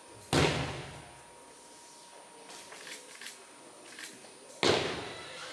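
Two aikido breakfalls: a thrown partner's body lands on the mat with a loud slap and thud, once about a third of a second in and again near the end, each echoing briefly.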